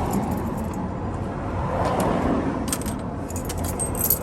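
Loose metal keys clinking as they are handled, a few clinks about two seconds in and more near the end, over a steady low rumble.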